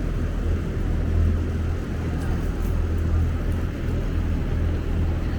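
Steady low drone of a greenhouse's industrial ventilation fans running.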